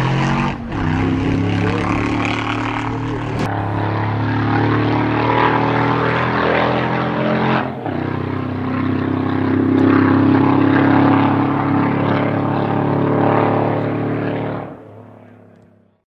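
Steady droning of an engine, with several steady tones held together and no clear revving up or down, broken by short cuts about half a second, three and a half and nearly eight seconds in. It fades out near the end.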